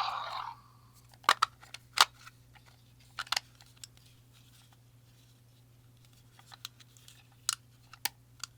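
Scattered sharp clicks and taps of plastic toy parts being handled and fitted together, a few at a time with pauses between, over a faint steady hum.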